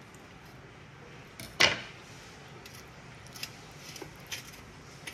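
A table knife clinks once, sharply, against a ceramic plate while cutting soft halwa, followed by a few faint clicks of handling.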